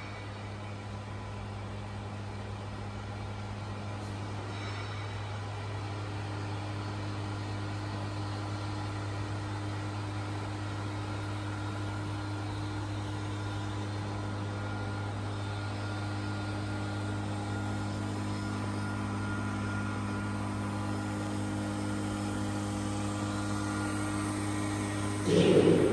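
Jungner US-450 tool and cutter grinder's two-speed spindle motor running steadily at 3000 RPM, a low electric hum with a few fainter steady tones above it that grows slowly louder. Near the end a much louder rushing noise comes in over it.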